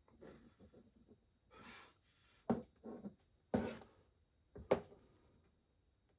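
Handling noises on a workbench: soft rustling, a short hiss, then three sharp knocks about a second apart.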